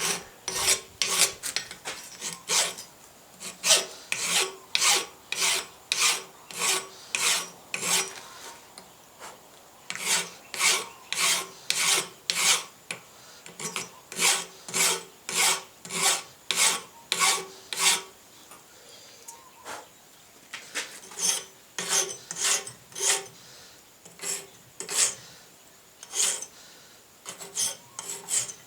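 Hand file strokes on forged steel, rasping back and forth at about two strokes a second, with short pauses about a third of the way in and again past the middle: filing cleanup of a freshly forged piece.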